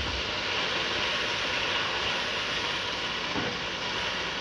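Boneless chicken pieces sizzling steadily in hot oil in a non-stick wok while a spatula stirs them.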